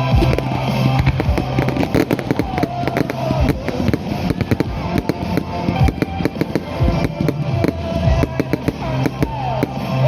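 Fireworks crackling and banging in quick, irregular succession over music.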